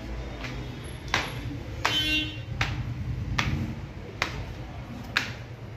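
Footsteps climbing tiled stairs and crossing a hard stone floor, short sharp steps about one every three-quarters of a second, over a steady low hum.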